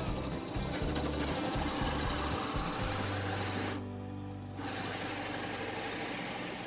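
A 2 1/8 inch Forstner bit boring into a birch log, the drill motor running steadily under the cutting noise. Just under four seconds in, the cutting stops for about half a second while the motor keeps humming, then resumes.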